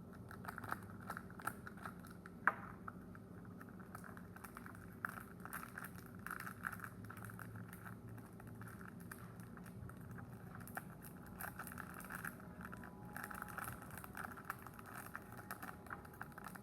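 Small plastic slime-kit containers and packaging being handled: scattered light clicks, taps and crinkling over a faint steady hum.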